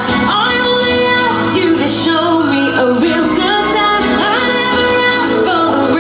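Pop song with female singing over a dense backing track, played loudly and without a break.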